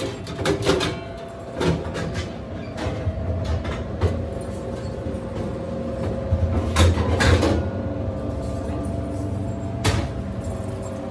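Vending machine being handled while cash is collected: several knocks and rattles of doors and metal parts over a steady hum.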